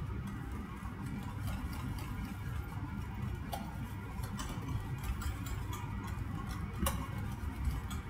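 Wire whisk stirring thick béchamel in a stainless steel saucepan: irregular light ticks of the wires against the pan, over a low steady rumble.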